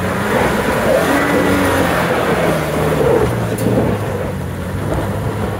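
4x4 truck engine revving hard against the held brakes with the rear differential locked, tyres scrabbling on leaf-covered dirt as the back end is kicked around in a tight turn. The revs stay high and ease back down about three seconds in.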